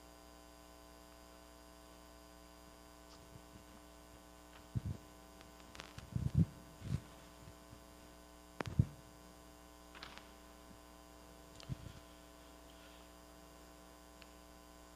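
Steady electrical mains hum, with a few soft, irregular thumps and knocks through the middle as someone walks across the chancel: footsteps and light handling.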